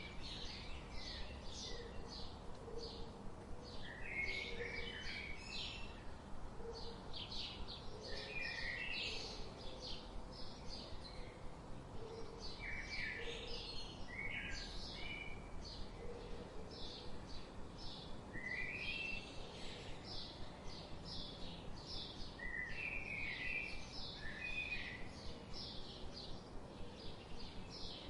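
Several birds chirping and calling without pause: many short high chirps and trills overlapping, with faint low repeated notes underneath and a steady background hiss.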